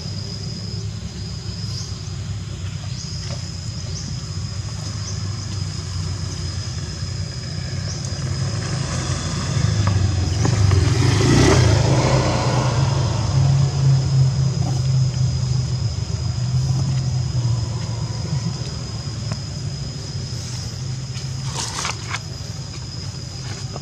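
A motor vehicle's engine running nearby: a low, steady rumble that swells and peaks about halfway through as it passes, then eases off. A thin, steady high-pitched whine sounds throughout.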